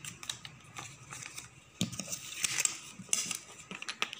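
A paper sheet being folded and creased by hand, rustling, with small clicks and knocks of a plastic ruler on a hard tabletop; one sharper knock comes a little under two seconds in.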